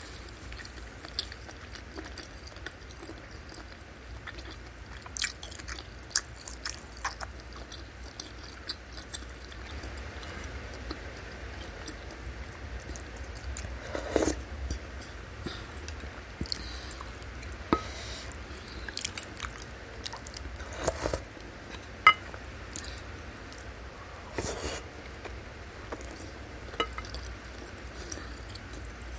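Close-miked chewing and biting of bakso beef meatballs, tendon, fat and noodles, wet mouth sounds broken by scattered short sharp clicks, the loudest one about two-thirds of the way in.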